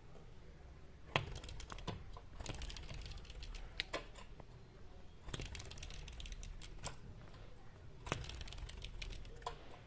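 A bird tapping and pecking at a window: quick sharp clicks in four clusters, each lasting a second or so.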